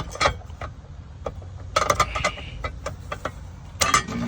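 Scattered sharp clicks and knocks over a low steady rumble, with a quick cluster of clicks about two seconds in and another near the end.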